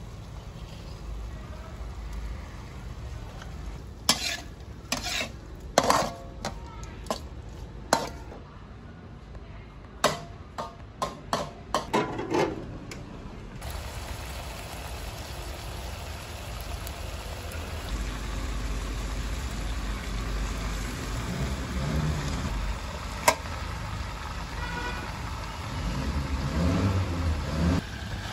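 Steel spatula clanking and scraping against a metal wok as chicken pieces are stir-fried, the strokes coming in a quick run for several seconds, then a steady sizzle with a single sharp clink later on. Near the end it gets louder as water spinach goes into the wok.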